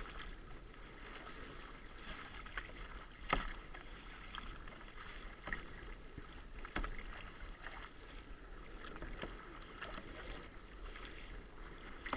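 Kayak paddle strokes dipping and splashing alongside a plastic sit-on-top kayak, with water slapping the hull in choppy sea; irregular splashes every second or two, the sharpest about three seconds in.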